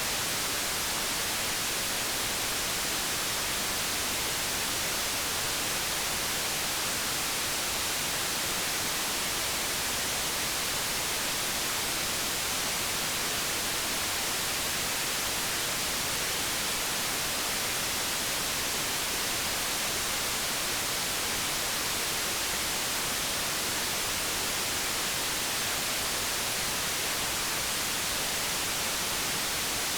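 Steady white noise: an even, unbroken hiss, strongest in the high frequencies, with no change in level or character.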